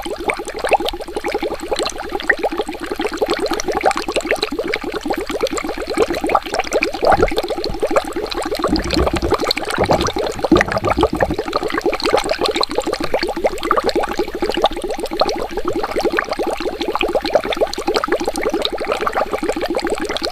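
Water bubbling steadily: a dense run of small bubbles gurgling, with deeper, lower gurgles about seven to eleven seconds in.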